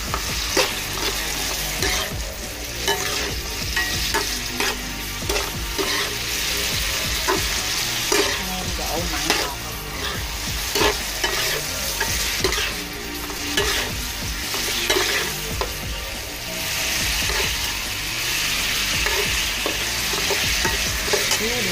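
Sliced bitter melon sizzling in hot oil in a nonstick frying pan while being stir-fried with a metal spoon, the spoon scraping and clicking against the pan again and again. The sizzling grows louder in the last few seconds.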